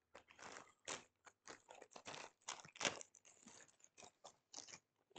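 Small plastic mechanical keyboard switches being handled: a quiet, irregular run of crunchy clicks and scrapes.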